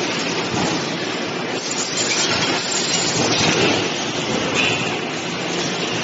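Automatic plywood veneer composer (jointing machine) running, its conveyor and feed feeding veneer sheets, a steady, dense mechanical noise with no breaks.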